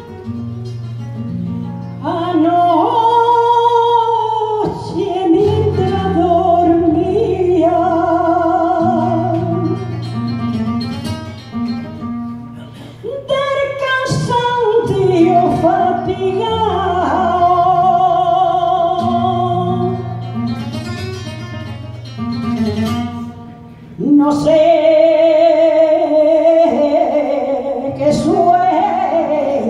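Live flamenco song: guitar alone, then about two seconds in a woman's voice enters, singing long, wavering phrases over the flamenco guitar accompaniment.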